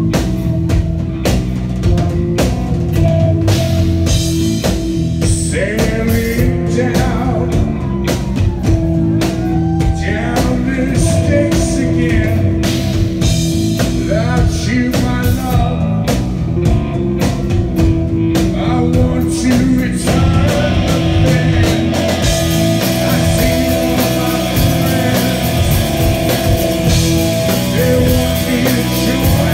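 Live rock band playing loud: electric guitar, bass and drum kit, with a male voice singing. About two-thirds of the way through the band gets fuller and brighter.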